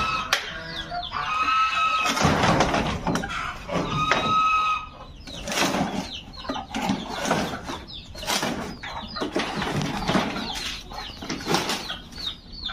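Poultry calling with a few held, squawking calls in the first few seconds. Then loose bamboo poles knock and clatter while a stick probes through a pile of them.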